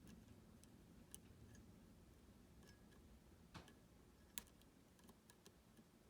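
Faint, irregular clicks of a lock pick working the pins inside a U-Shin Showa NX high-pin-count lock, with two sharper clicks about three and a half and four and a half seconds in.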